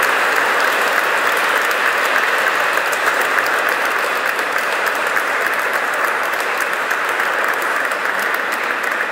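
A church congregation clapping steadily, easing off slightly toward the end.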